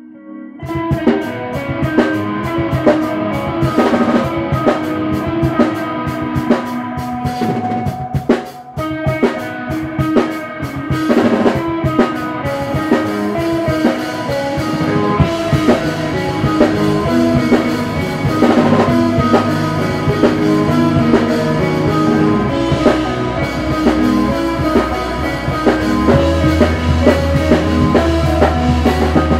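Live rock band playing: electric guitar and drum kit crash in together about half a second in and keep going loud, with dense drum hits under sustained guitar chords. The low end grows heavier near the end.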